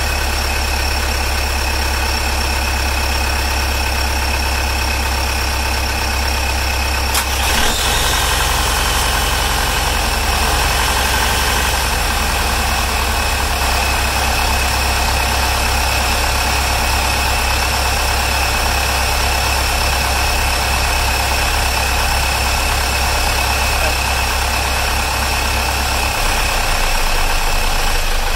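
Boat's inboard marine diesel engines idling steadily in the engine bay. A short sharp click is heard about seven seconds in.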